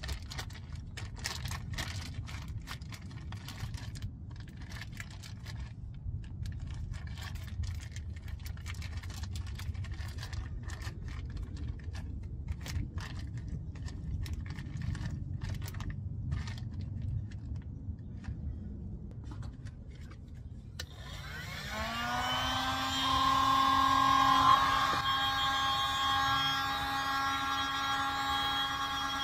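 A grease-filled plastic bag wrapped over the steering rack boot crinkling and crackling as a gloved hand squeezes and works it, over a low background rumble. After about twenty seconds an electric heat gun is switched on: its fan motor whines up in pitch and settles into a steady hum.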